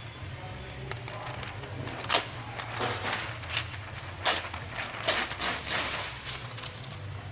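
Print-shop machinery running with a steady low hum, over which come irregular sharp clacks and swishes, the loudest about two seconds in and again just past four seconds.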